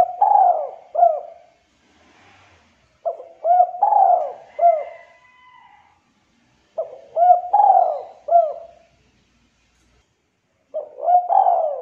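Spotted dove cooing its multi-note 'culhu kuk' phrase over and over, about every four seconds, deep and clear. Each phrase is a run of low coos with short upward-hooked notes; one phrase is already under way at the start and the last one is cut off at the end.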